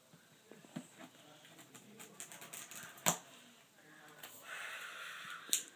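Plastic shrink-wrap on a MacBook Pro box being cut and pulled open: scattered small clicks and crinkles, a sharp snap about three seconds in, and a stretch of rustling plastic near the end.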